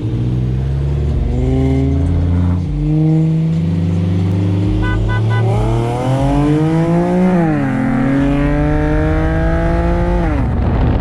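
Car engine at full throttle in a roll race, its pitch climbing through the revs and dropping at an upshift about seven and a half seconds in, then climbing again before the driver lifts off near the end. A short run of electronic beeps sounds about five seconds in.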